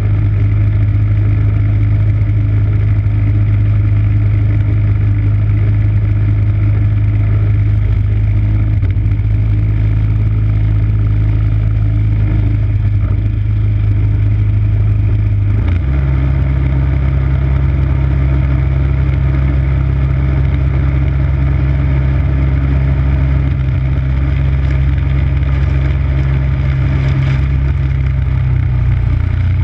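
MTD snow blower's 5 hp engine running steadily close by; about sixteen seconds in its note changes abruptly, then holds steady again.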